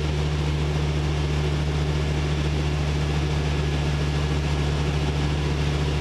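Small aircraft's piston engine and propeller droning steadily in the cockpit, holding climb power at an even pitch.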